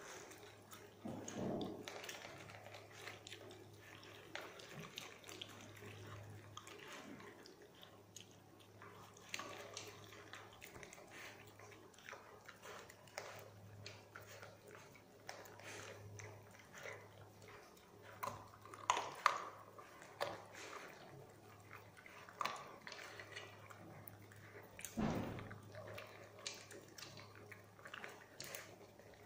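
Two dogs eating dry kibble from a shared stainless steel bowl: crunching and chewing, with scattered clicks and taps of kibble and muzzles in the bowl.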